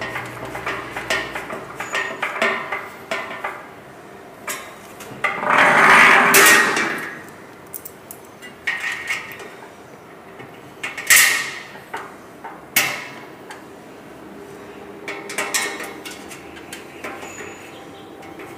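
Screwdriver and bolt clinking and knocking against the thin steel drum of a cement mixer as a blade bolt is tightened from outside, with the nut held inside. There are irregular sharp metallic knocks, a louder clatter lasting about a second around six seconds in, and two strong knocks near the middle.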